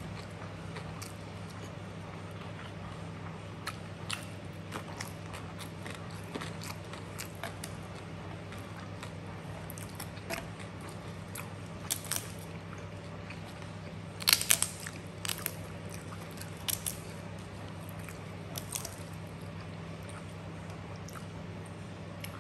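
Close-up eating sounds: crisps being bitten and chewed, with scattered short crunches and mouth clicks, the loudest cluster of crunches about fourteen seconds in. A steady low hum runs underneath.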